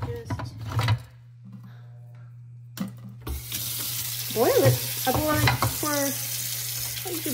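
A kitchen tap runs into a steel pot of frozen chicken tenders in a stainless steel sink, filling it for boiling. The water starts about three seconds in, after a few knocks as the frozen pieces are handled in the pot. Several short rising and falling whines sound over the running water.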